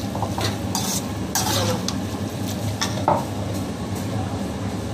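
Perforated steel skimmer stirring fusilli pasta and vegetables in a metal kadai, scraping against the pan several times, over a steady low hum.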